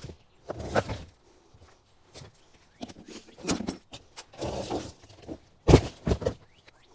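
Footsteps and handling knocks, scattered and uneven, with a loud thump a little before the end and a few knocks right after it.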